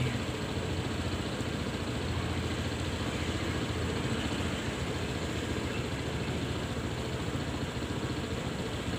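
Motor scooter engine idling steadily while the scooter stands still.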